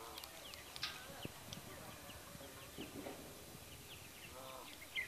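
Faint birdsong: short high chirps repeated over and over, with a brief lower animal call about four and a half seconds in.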